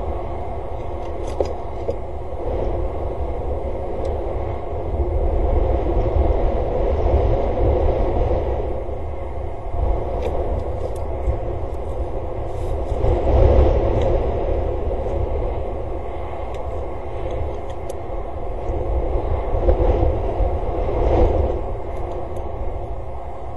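Wind buffeting an outdoor webcam microphone: a steady low rumble that swells in gusts three times, with a few faint ticks over it.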